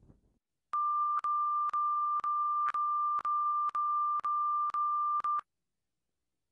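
Colour-bars test tone: one steady beep, broken by short clicks about twice a second, that cuts off about five and a half seconds in.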